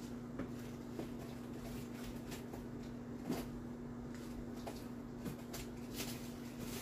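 Quiet kitchen room tone: a faint steady electrical hum from an appliance, with a few soft scattered knocks and clicks.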